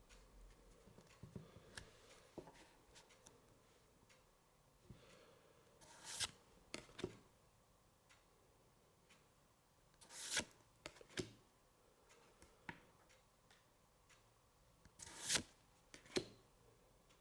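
Pokémon trading cards being handled and slid across one another: three brief swishes about four to five seconds apart, each followed by a few light taps, with faint clicks in between.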